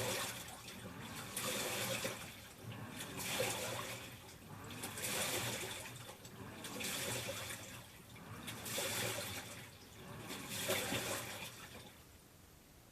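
Panasonic NA-FA10K1 top-loading washing machine sloshing water around its tub in rhythmic swells about every two seconds, dying down near the end.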